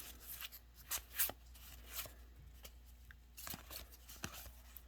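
Trading cards being handled and sorted by hand: soft rustles and a scattering of light, sharp card clicks, with a faint steady hum underneath.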